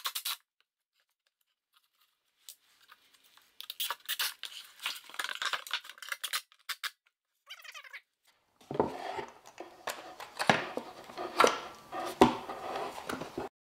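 Handling noise of wood and tools on a workbench: scattered light clicks and taps, then, from about nine seconds in, louder knocks and scraping as a plywood board is shifted and lifted.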